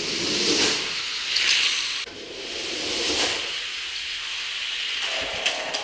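Several die-cast 1/64 scale cars rolling down a plastic Hot Wheels track, a steady rushing hiss that swells and fades a few times, with a few sharp clicks near the end.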